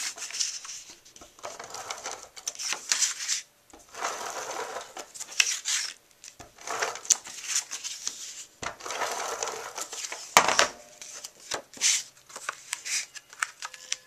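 Paper and cardstock rustling and crinkling as a patterned sheet is handled, slid and pressed down onto a card, in a run of repeated swishes with a few sharp taps, one loudest a little past halfway.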